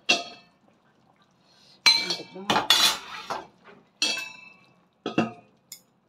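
Metal utensil clinking and knocking against a stainless steel cooking pot: a handful of separate strikes, each with a short metallic ring, with a busier cluster about two seconds in.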